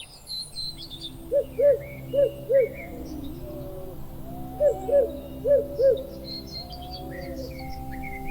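Owl hooting in two series of four short hoots, with small birds chirping faintly higher up and steady low droning tones underneath.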